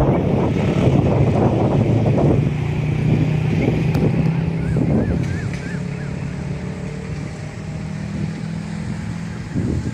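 An engine running with a steady low hum, and wind buffeting the microphone for the first couple of seconds. A few faint short chirps come about halfway through.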